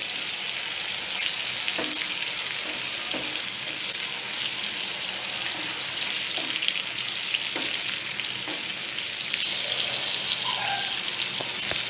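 Stuffed okra sizzling as it fries in oil in a non-stick pan, with a spatula now and then scraping and knocking against the pan as it is stirred.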